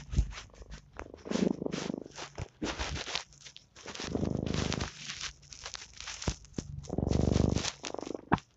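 Domestic cat purring close to the microphone, in three loud rhythmic bouts about three seconds apart, with soft clicks and crackles between them.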